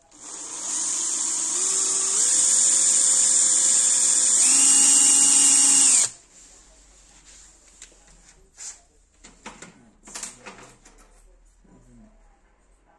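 Electric drill boring a hole into a metal chassis plate. The motor whine steps up in pitch a few times, then stops suddenly about six seconds in, followed by a few light clicks and rattles.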